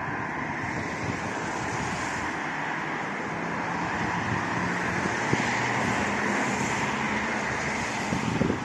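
Steady background noise of distant road traffic, with a faint engine hum swelling slightly in the middle, and light wind on the microphone.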